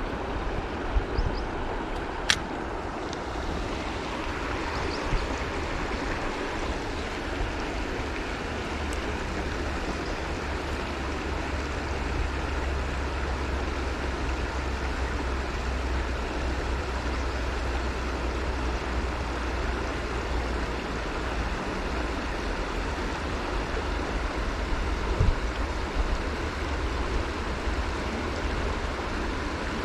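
Steady rush of a shallow stream flowing, with wind rumbling on the microphone. A single sharp click about two seconds in.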